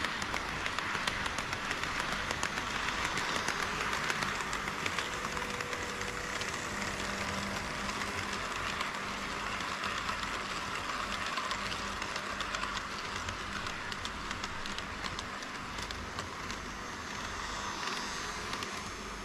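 HO scale model freight train rolling along sectional track, its metal wheels running on the rails with a steady rushing rumble and a dense patter of small clicks at the rail joints, easing off slightly near the end as the train moves away.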